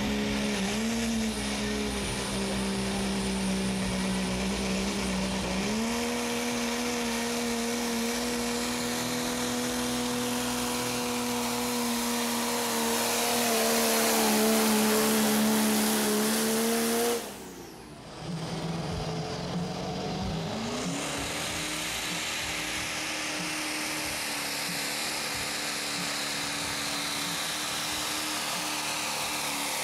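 Turbo-diesel pickup trucks at full throttle pulling a weight-transfer sled: first a Dodge Ram's Cummins inline-six climbs to high revs and holds them steady under load. Partway through, the sound cuts briefly and a Chevrolet Silverado's Duramax V8 diesel takes over, revving up and holding steady as it pulls.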